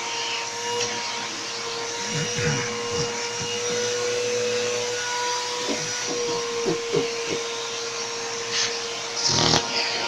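Vacuum cleaner running steadily with a constant motor whine, its hose nozzle pressed against a person's lips. About nine and a half seconds in there is a short, loud rush of noise.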